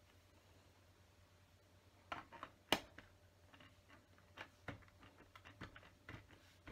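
Plastic LEGO bricks clicking and tapping as pieces are pressed onto a model. Scattered sharp clicks start about two seconds in, the loudest a little after that.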